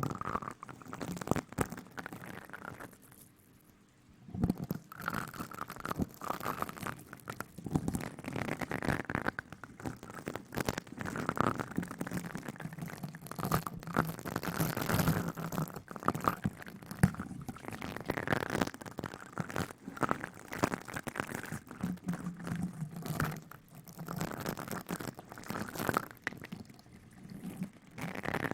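Close-miked ASMR rustling and rubbing: a dense, continuous run of crackles and scratches, with a short lull about three seconds in.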